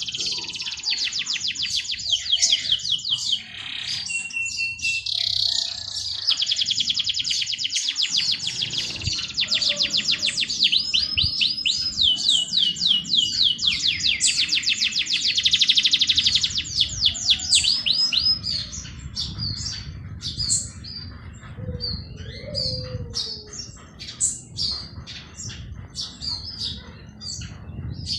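Songbirds singing: long, very fast high trills, breaking after about two thirds of the way into scattered short chirps.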